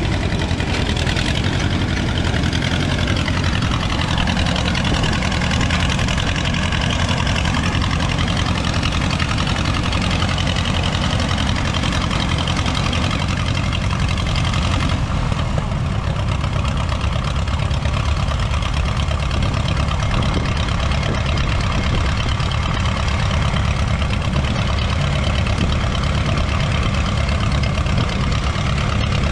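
Vintage Allis-Chalmers tractor engine running steadily under load as it pulls and drives a pull-type combine picking up a windrow, the combine's machinery running along with it.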